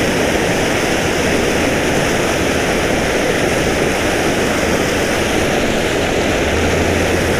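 Steady rush of water pouring out of a large spill pipe into a river, an unbroken loud roar of fast-flowing water.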